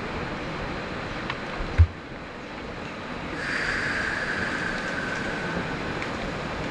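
Steady industrial machinery noise. A single low thump about two seconds in, and a hiss that comes in about three and a half seconds in and lasts about two seconds.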